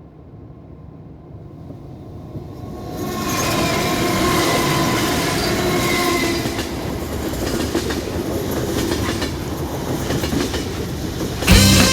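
Passenger train running on the rails: wheels clicking over rail joints, with faint thin squealing tones. The sound grows louder over the first three seconds, then holds steady. Music cuts in right at the end.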